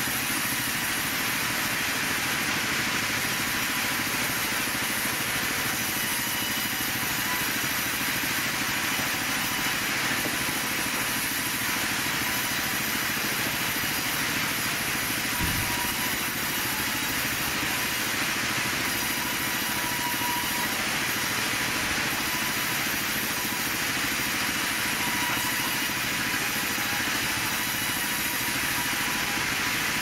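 Sawmill band saw running steadily as timber is fed through it, an even, unchanging machine drone with a faint steady whine. There is a brief low thump about halfway through.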